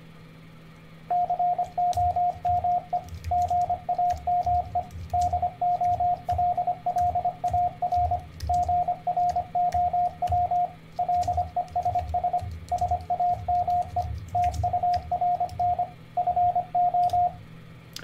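Morse code from a computer trainer sending random words at 25 words a minute: a single pure tone set to 700 Hz pitch, keyed on and off in dots and dashes with short gaps between words. It starts about a second in and stops near the end, with faint computer keyboard clicks as the words are typed in.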